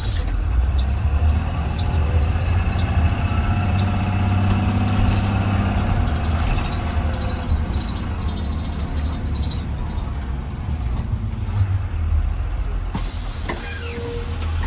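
2020 Blue Bird Vision school bus under way, heard from inside: steady low engine and drivetrain running, with a whine that rises and falls about halfway through.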